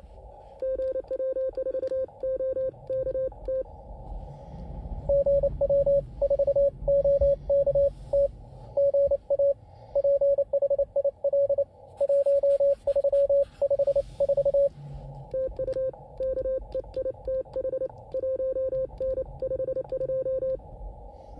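Morse code contest signals received on an Elecraft K2 HF transceiver on the 20 m band: a single pitched tone keyed rapidly on and off in dots and dashes over a low hiss of band noise, with brief pauses between transmissions. In places a fainter, higher-pitched second signal can be heard alongside.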